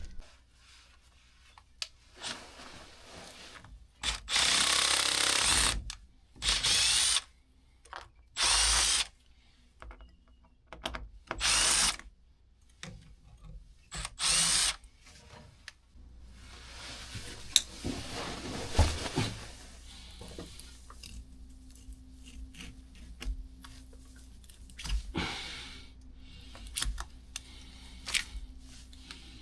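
Power drill run in about five short bursts of a second or two each, loosening the clamps on the rubber couplings that join the cast iron drain pipe. Quieter scraping and scattered clicks follow in the second half.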